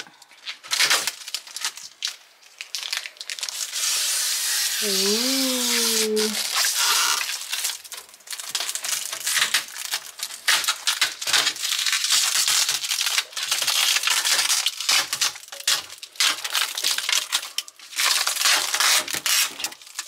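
Protective plastic film being peeled off a new refrigerator's glass shelf trim and crumpled in the hand: irregular crinkling and tearing crackles. A person makes a short voiced sound, rising then falling, about five seconds in.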